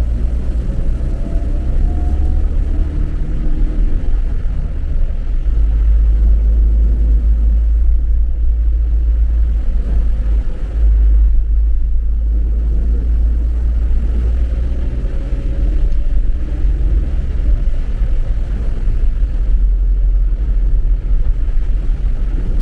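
Car driving through standing floodwater: a loud, steady low rumble of the car and road, with a faint rising engine note twice.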